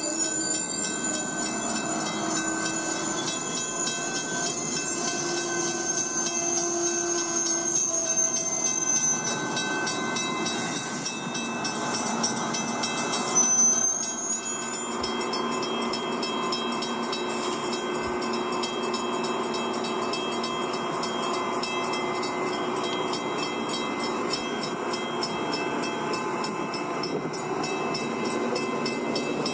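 LEGO train running along plastic LEGO track: a steady electric-motor whine, with even, rapid clicking of wheels over the track joints through the second half.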